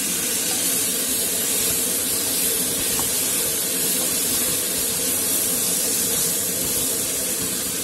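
Chicken, noodles and vegetables frying in a wok on high heat: a steady, loud sizzle.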